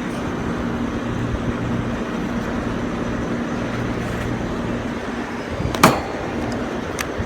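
Trane rooftop package unit running, its compressor humming steadily while the motor stands still, not spinning. A single sharp knock comes about six seconds in, with a lighter click about a second later.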